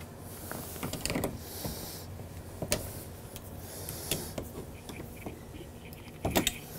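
Small clicks and knocks from a washing machine's water supply hose coupling being tightened with pliers. The coupling is getting an extra half turn to stop a drip, a sign that its rubber washer is not yet compressed enough.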